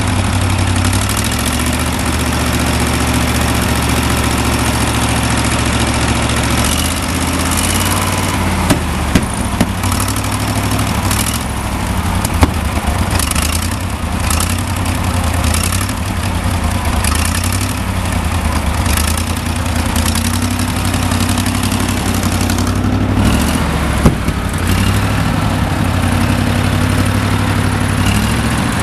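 Wisconsin VP4 air-cooled flathead V4 engine running, its speed shifting a couple of times, with a few sharp pops. The owner says it is running way out of time and short of fuel.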